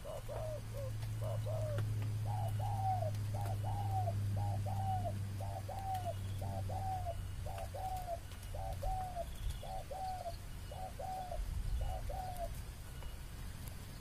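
Spotted doves cooing in a long run of short, arched coos, about two a second. The coos are quicker and clipped for the first couple of seconds and stop near the end: territorial calling between rival birds squaring off.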